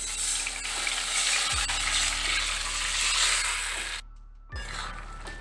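Boiled papaya going into hot mustard oil and tempered spices in a kadai, sizzling loudly for about four seconds, then cutting off abruptly and resuming more quietly. Background music plays underneath.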